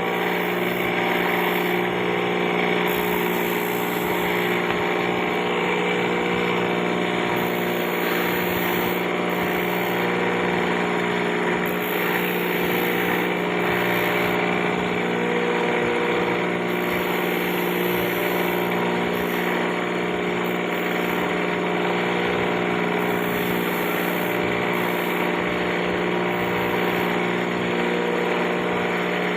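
A machine's electric motor running steadily: a constant hum with a noisy whir over it, unchanging throughout.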